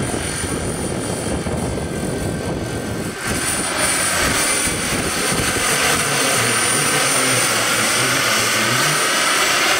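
Radio-controlled scale model helicopter flying past, a steady rotor and drive noise with a thin high whine, growing louder about three and a half seconds in and staying loud.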